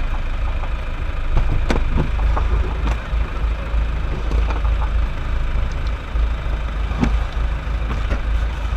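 Steady low rumble of a vehicle engine idling, with a few faint clicks and knocks.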